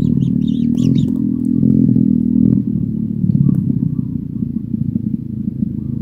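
Kingfisher nestlings in their burrow giving a continuous low, purring churr, the begging chorus of young being fed, with a few short high chirps in the first second.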